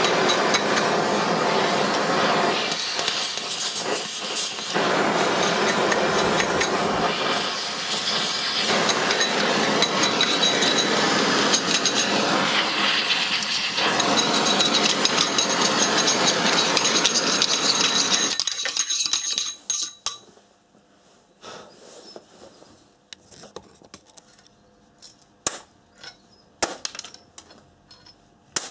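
Oxy-fuel gas torch flame hissing steadily as it heats a steel motorcycle flywheel rotor, then cut off suddenly about two-thirds of the way through. After that, scattered light metallic clinks as the rotor is handled.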